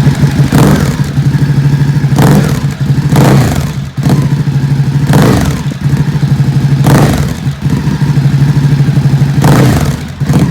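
Ducati Hypermotard 950 SP's L-twin engine through Austin Racing slip-on exhausts, heard from behind the bike: a lumpy idle with about six sharp throttle blips, each rev rising and dropping straight back to idle.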